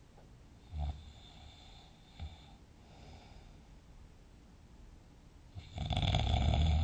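A sleeping person snoring: a short snort about a second in, a weaker one a little after two seconds, then a long, loud snore beginning near the end.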